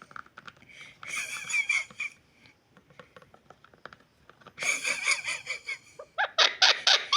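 Pet parrot calling in bursts: a high-pitched call about a second in, a longer one about five seconds in, then a quick run of short sharp calls near the end.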